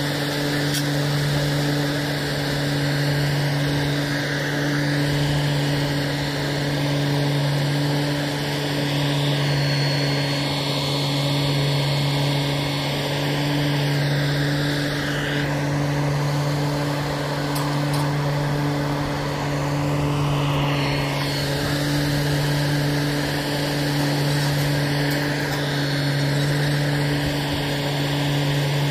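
Engine of a railway UTV crane vehicle running steadily at a constant speed, a low hum that swells and fades about every two and a half seconds.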